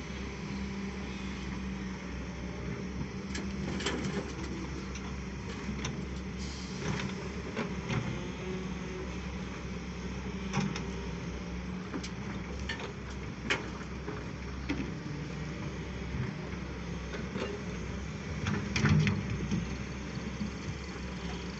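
Diesel engine of a Volvo excavator running steadily while it loads a UD dump truck. Scattered knocks and clatters come as dirt and rocks drop into the steel dump bed, with the loudest clatter near the end.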